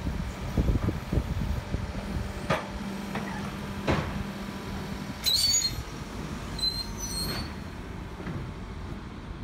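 Cat backhoe loader's diesel engine running while it demolishes a wooden building: knocks and cracks of timber in the first few seconds, then two short high-pitched squeals about five and seven seconds in.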